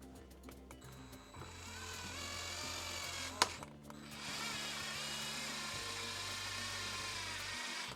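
Cordless drill-driver running twice, driving small screws into a plastic model-kit part: a whine that rises slightly in pitch as each screw goes in, with a sharp click between the two runs.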